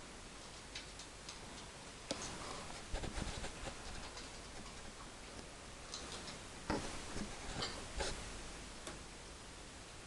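African grey parrot clicking and tapping: scattered, irregular clicks and a few soft knocks, the louder ones from about two seconds in.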